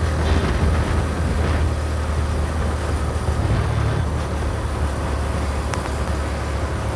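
Honda Magna 50's 49cc single-cylinder four-stroke engine running steadily as the moped rides along, mixed with wind and road noise on the microphone.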